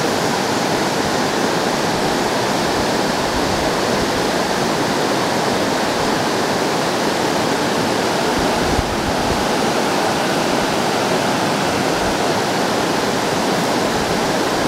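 Water rushing over the rocks of a dam spillway: a steady whitewater rush.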